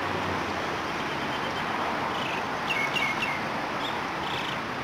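A bird chirping: three or four quick, short chirps about three seconds in, then a couple of fainter ones, over a steady outdoor background hiss.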